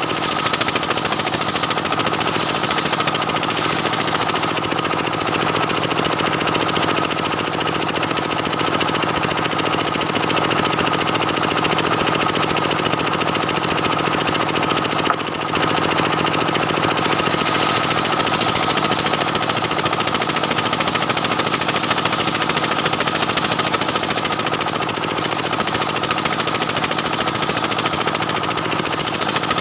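Stihl 070 two-stroke chainsaw running at full throttle, its chain ripping lengthwise through a dense jackfruit-wood beam. The steady cutting sound eases off briefly about halfway through, then carries on.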